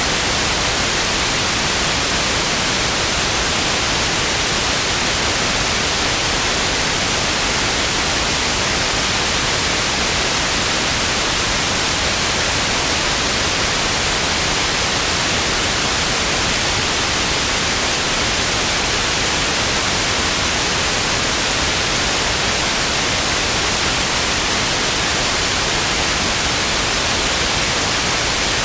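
Television static: a steady, unbroken hiss of white noise, brightest in the treble.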